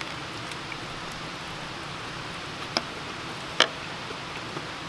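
A wooden fork knocking on a wooden plate: a light tap a little before three seconds in, then a sharper knock about a second later as the fork is set down. A steady hiss runs underneath.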